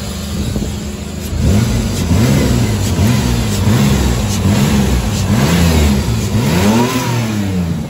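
1998 Ford Ranger's 4.0-litre V6 engine revved by hand at the throttle linkage: it idles, then from about a second in is blipped up and down about six times in quick succession, the last rev going highest, before settling back toward idle near the end.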